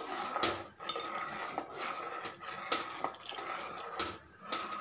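A steel spoon stirring milk in a steel pot, scraping and clinking against the pot again and again while custard mix is stirred in.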